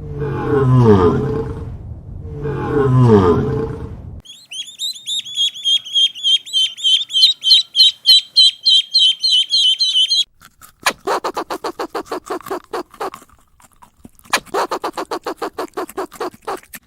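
Successive animal calls: a large animal gives three rough calls falling in pitch about two seconds apart, then a small bird sings a fast, high chirping trill for about six seconds, then two runs of rapid pulsed calls follow.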